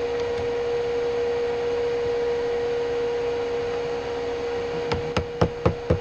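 Machine-shop lathe running with a steady electric hum and one constant tone. Near the end comes a quick run of about seven sharp clicks, about four a second.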